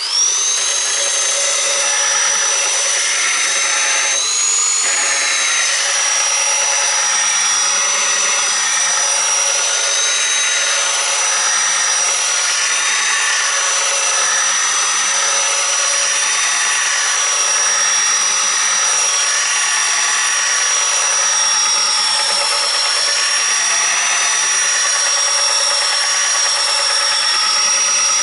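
Electric motor of a homemade power knife sharpener starting up at once and running with a steady high whine, while a knife blade is ground against its abrasive in slow, repeated passes.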